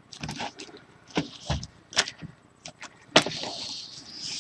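Sealed trading-card boxes being handled: scattered light knocks and clicks, a dull thud about a second and a half in, then a sharper knock followed by a longer rustle near the end.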